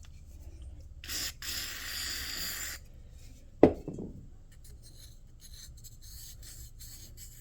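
Aerosol contact cleaner sprayed into a gritty water-blaster carburetor: a short spurt about a second in, then a steady spray for about a second and a half. A sharp knock follows, then light scraping and rubbing of small metal parts.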